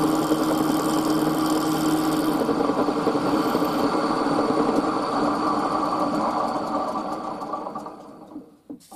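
Milling machine spindle running a 10 mm end mill across the tops of two brass blocks, a half-millimetre facing pass. The cutting noise eases after about two and a half seconds while the spindle runs on, then winds down and stops near the end.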